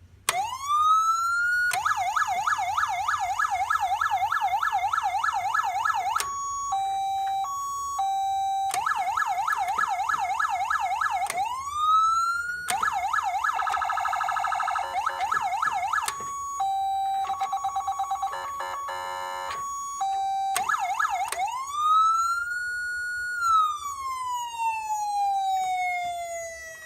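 Code 3 Mastercom B electronic siren running through its tones, powered from a jump starter. It opens with a rising wail, then fast yelp sweeps, an alternating two-tone hi-lo and a rapid warble. It ends with a wail winding up to a peak and gliding back down.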